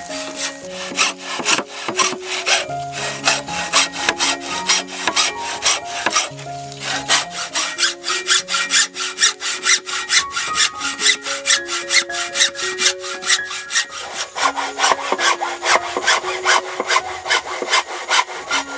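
Hacksaw cutting through a bamboo tube in rapid back-and-forth strokes, about four a second, with a couple of brief pauses. Soft background music runs underneath.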